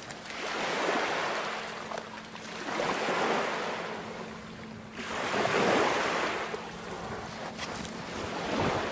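Small waves washing up on a sandy shore, swelling and falling back three times a couple of seconds apart.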